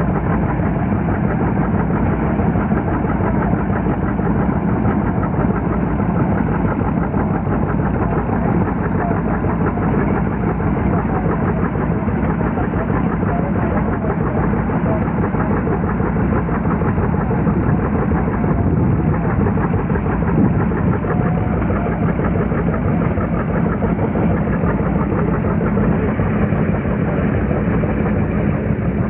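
Tractor engine running steadily, a continuous loud drone with no break.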